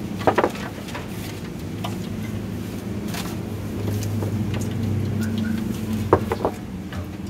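A steady low engine hum, with a few sharp clinks of a spoon against a ceramic plate about a third of a second in and again near the end, as peanut sauce is scraped off the plate.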